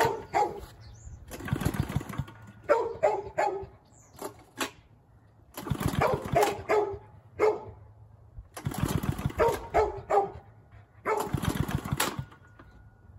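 Small go-kart engine being pull-started over and over, turning over with each yank of the recoil cord, a few seconds apart, without catching. A dog barks in between.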